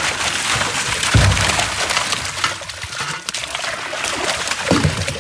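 Water pouring and splashing out of an upended catfish can onto the boat floor, with a heavy thud about a second in and a smaller one near the end.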